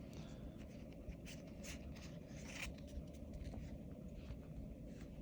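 Faint scraping with a few soft ticks: Yu-Gi-Oh trading cards being slid across one another by hand.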